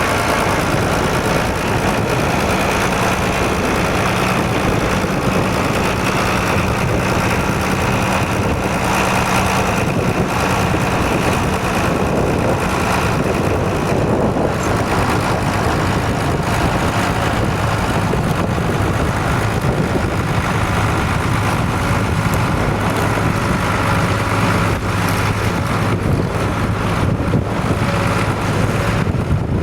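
Vintage tractor engine running steadily under load while ploughing, its note sitting lower in the second half, with wind noise on the microphone over it.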